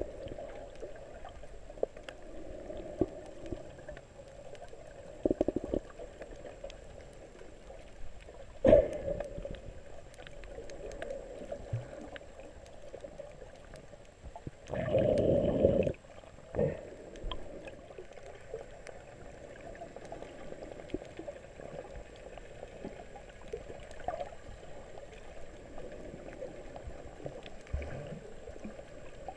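Muffled underwater water sound picked up by a submerged camera while snorkeling: a steady low wash of moving water. There is a short sharp burst about a third of the way in and a louder rush lasting about a second around the middle.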